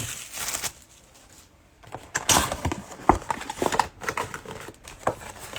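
Trading cards and packs being handled on a table: irregular light clicks and taps with soft rustling, quiet for about a second before picking up again.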